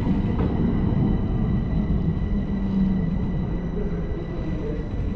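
Bucharest metro train running, heard from inside the carriage: a steady low rumble of wheels on rail with faint steady high whines. It grows slightly quieter toward the end as the train slows into a station.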